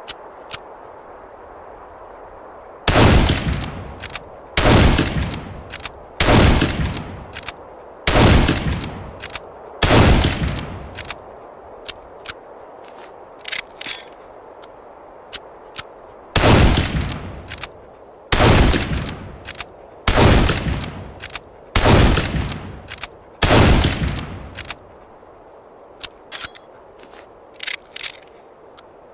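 Mauser Gewehr 98 bolt-action rifle in 7.92×57mm firing two strings of five shots, each shot about two seconds after the last and trailing a short echo, with the bolt clicking as it is worked between shots. Clusters of small metallic clicks follow each five-shot string.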